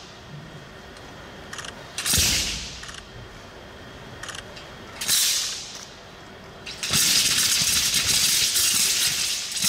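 Thin, flexible competition broadsword blade snapping and rattling as it is whipped through cuts: sharp cracks about two and five seconds in, each dying away over about half a second. From about seven seconds in comes a continuous rattling whoosh as the blade is spun rapidly around the body.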